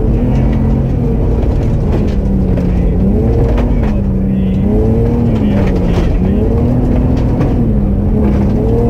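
Rally car's engine heard from inside the cabin, its pitch rising and dropping several times as it accelerates and shifts gear along a gravel stage. Tyres rumble on the gravel, with a few sharp clicks.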